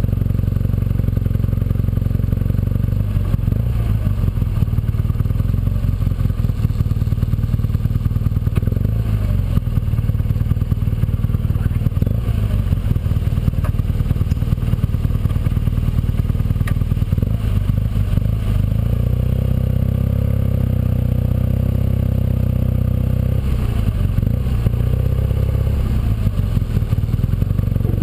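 Motorcycle engine running under way at a steady loud level, its pitch rising and falling a few times as the ride goes on.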